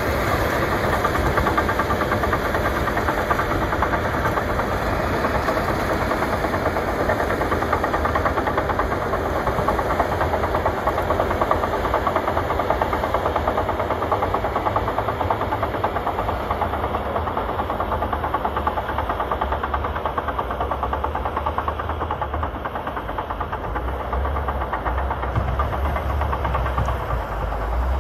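Caterpillar crawler bulldozer's diesel engine running steadily as the dozer pushes snow, with the clatter of its tracks.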